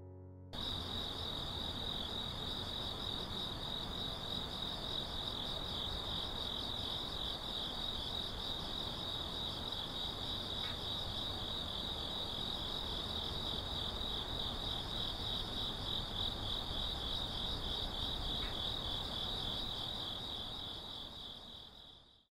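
Crickets chirping in a steady, high-pitched pulsing trill, starting about half a second in and fading out at the very end.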